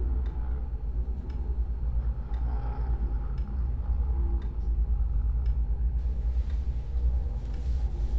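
Low steady rumbling drone with faint, irregular ticks now and then.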